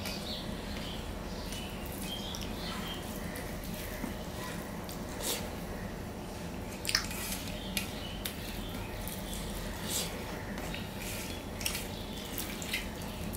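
Wet squelches and small clicks of cooked rice being mashed and mixed by hand with thin lentil dal and mashed potato on a steel plate. The sounds come irregularly, with a handful of sharper clicks standing out.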